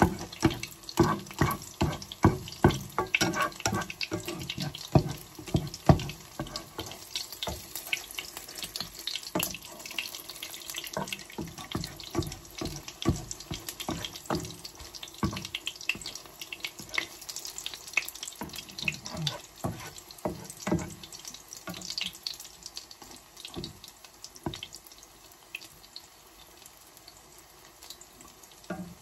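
Okra-and-egg omelette frying in shallow hot oil in a pan: a steady sizzle with many sharp pops of spitting oil, densest and loudest in the first several seconds and thinning out toward the end.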